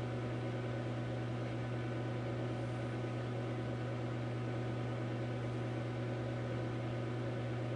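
Steady low electrical hum with an even hiss over it: the background noise of the recording microphone, with no other sound.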